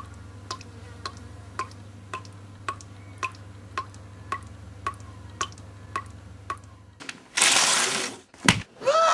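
Sharp clicks repeating evenly, nearly two a second, over a steady low hum. About seven seconds in, a loud burst of hiss-like noise lasts under a second, then two sharp knocks follow.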